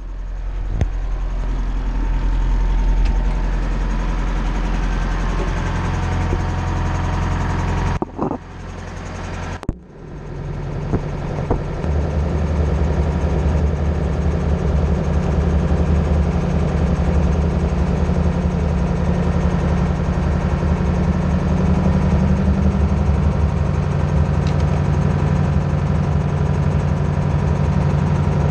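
Mercedes-Benz MB Trac 800 tractor's diesel engine idling steadily, heard first from inside the cab. The running sound drops out briefly twice, about eight and ten seconds in, then carries on steadily.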